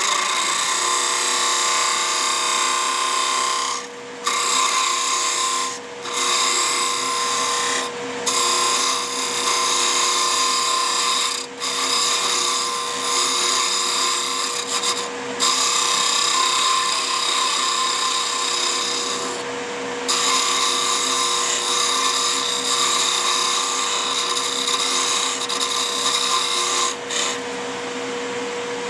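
Wood lathe running with a steady motor hum while a hand-held turning tool cuts the spinning wooden handle in light clean-up passes to smooth torn grain. The shaving noise breaks off briefly several times as the tool is lifted, and stops near the end, leaving the lathe running alone.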